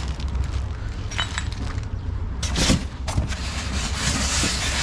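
Packing being handled and pulled from a cardboard box: a few light clicks, a sharp crunch about two and a half seconds in, then a scraping rustle.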